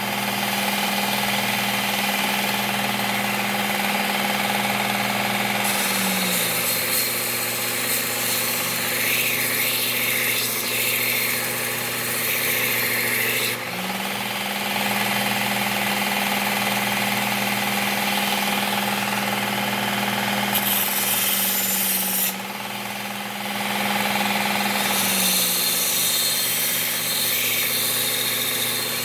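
Work Sharp Ken Onion Elite belt sharpener running, with a mower blade's steel ground against the moving abrasive belt. The motor hum drops and returns a few times, and the gritty grinding noise grows and fades as passes start and stop.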